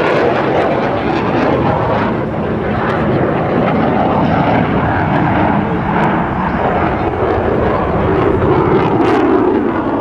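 Loud, steady jet noise from a US Navy Blue Angels F/A-18 Hornet's twin turbofan engines as the jet flies past and climbs away.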